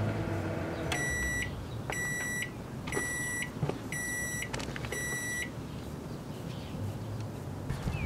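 Danby microwave oven's running hum stops as its timer reaches zero about a second in, then it beeps five times, about once a second, to signal the end of the cooking cycle.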